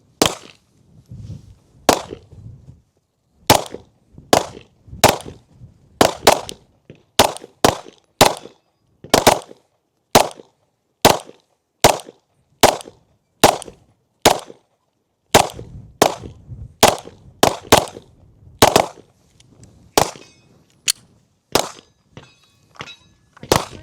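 Handgun shots at a shooting range: a long, uneven string of sharp reports, roughly one to two a second, each dying away quickly.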